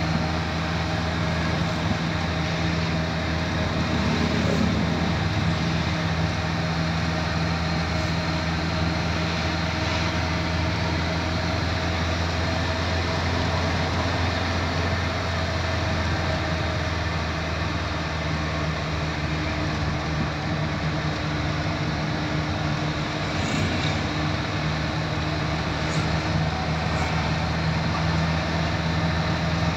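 Steady engine hum and road noise heard inside a moving car's cabin.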